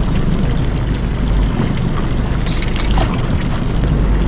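Water lapping and splashing against the hull of a small fishing boat, a steady wash with a low rumble underneath.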